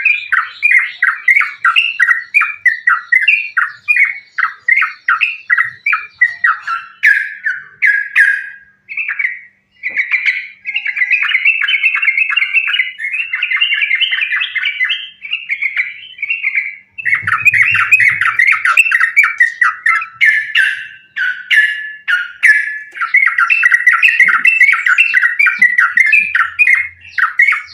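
Yellow-vented bulbul (trucukan) singing in a loud, rapid, unbroken chatter of short bubbly notes, the fast repeated 'ropel' delivery of a bird singing to challenge a rival. The run pauses briefly twice.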